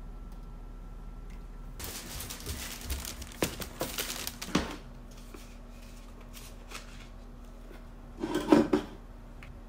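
Stiff paper takeout bag rustling and crinkling as it is handled, with sharp clicks, starting about two seconds in and lasting a few seconds. Near the end there is a brief, louder thump and rustle.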